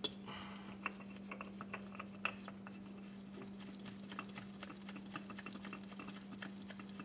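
Faint, irregular clicks and light scrapes of a gloved hand spinning a new spin-on hydraulic filter onto its metal housing, over a steady low hum.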